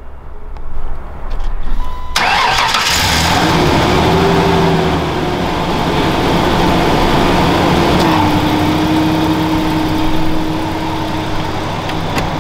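Ford Ranger pickup's engine starting about two seconds in, then idling steadily; its note steps down a little about eight seconds in.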